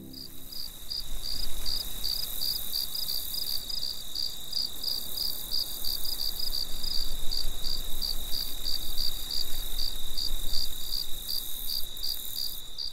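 Crickets chirping: a steady high trill with short chirps repeating about four times a second over it.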